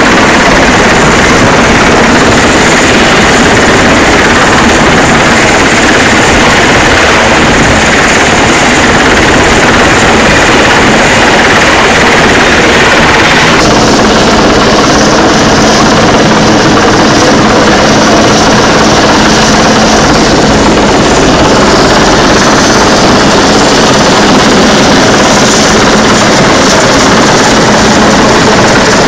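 Coast guard helicopter hovering low overhead: very loud, steady rotor and engine noise. Its tone shifts about halfway through.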